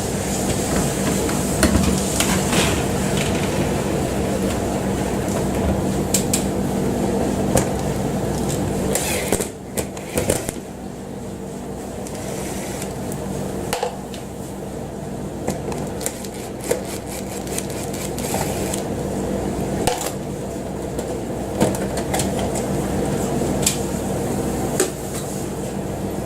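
A steady machine hum with scattered clicks and knocks, the sound briefly dropping about ten seconds in.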